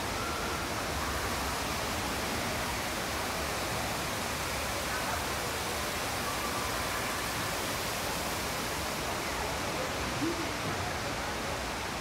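Steady, even rushing of a large indoor waterfall cascading down a planted artificial mountain.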